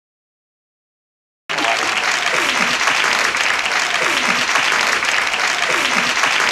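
Dead silence for about a second and a half, then a sitcom studio audience applauding steadily and loudly. A falling tone repeats about every two seconds over the applause.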